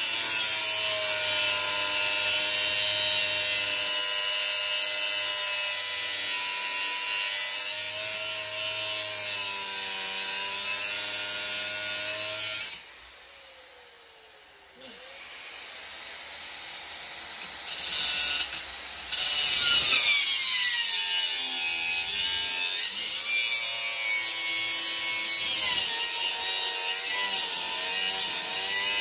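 Grinder with a small cut-off wheel cutting into the steel shell of a small compressor, a loud gritty hiss over a motor whose pitch wavers under load. About halfway through it is released and winds down. After a short lull with a couple of brief bursts it spins back up and cuts again.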